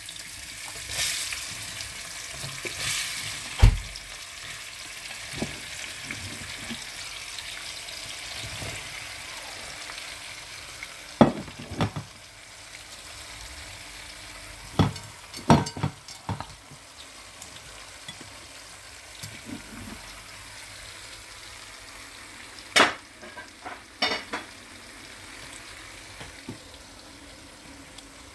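Sliced red onions sizzling as they fry in hot red palm oil, with stirring. The hiss is strongest in the first few seconds and then settles to a steady sizzle, broken by a few sharp knocks from the stirring.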